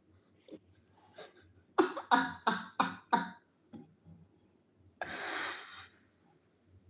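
A woman laughing in five quick, loud bursts, then a breathy exhale about a second long.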